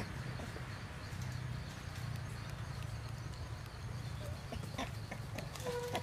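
Outdoor ambience: a steady low rumble with scattered faint clicks and rustles, and a short steady-pitched animal call near the end.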